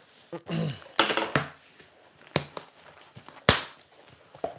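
A cardboard box being opened with scissors: the packing tape is cut and the flaps are pulled open with cardboard rustling, among several sharp knocks on the tabletop, the loudest about three and a half seconds in.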